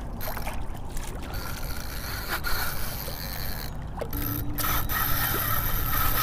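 Fishing reel whirring under the load of a hooked tarpon, in one stretch about a second in and again steadily from about four seconds in, over a constant wash of water and wind noise.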